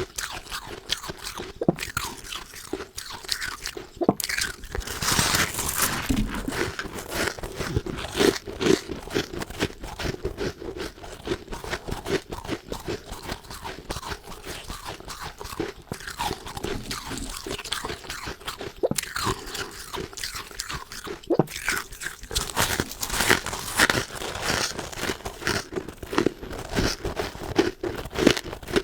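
Close-up crunching and chewing of powdery freezer frost (snow ice) in the mouth: a dense, uneven run of crisp crackles from bites and chews.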